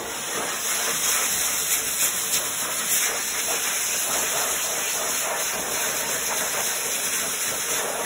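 Force dryer blowing a steady, loud hiss of air through its hose nozzle, blasting water out of a wet dog's coat after a bath.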